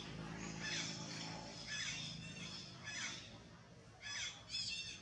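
Baby long-tailed macaque giving a series of short, high squealing calls, about one a second, with a couple close together near the end.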